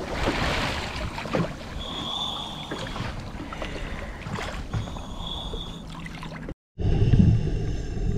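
Small fishing boat on the sea: water sloshing and wind noise, with two brief high steady tones about two and five seconds in. Near the end the sound cuts out abruptly and is replaced by a louder low rumble.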